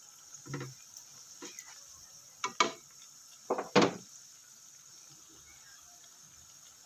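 Dough sticks deep-frying in hot oil in a wok: a steady high sizzle with a few sharp clicks and pops, the two loudest near the middle.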